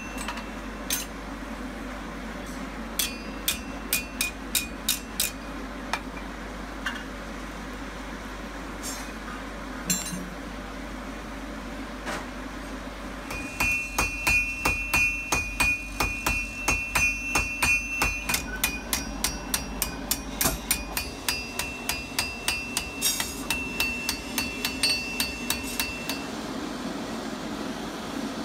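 Hammers striking red-hot iron on an anvil. A handful of single blows come in the first few seconds. About 13 seconds in, a smith and his striker begin fast hammering, about four blows a second, with the anvil ringing, and they stop a couple of seconds before the end.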